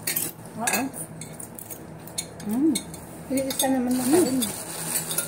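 A metal fork clinking and tapping on a plate, with a few short wordless vocal sounds from a woman as she eats a hot green chili pepper.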